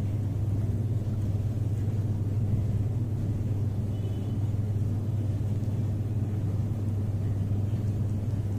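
Steady low hum that does not change.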